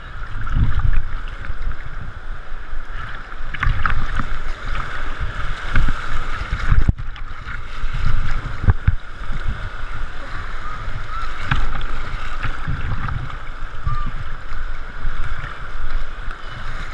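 Muffled rushing and sloshing of river water right against the camera, with uneven low thumps throughout.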